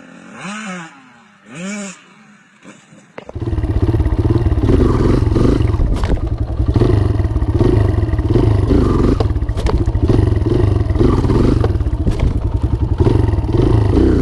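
2020 Kawasaki KLX140 dirt bike's single-cylinder four-stroke engine running, coming in suddenly about three seconds in. Before it there is a quieter stretch with two short rising-and-falling chirps.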